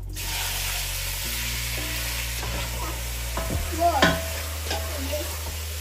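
Raw chicken pieces frying in hot oil in a stainless steel pot: a steady sizzling hiss that starts suddenly as the meat goes in. A wooden spoon stirring and knocking against the pot, with a few knocks about four seconds in.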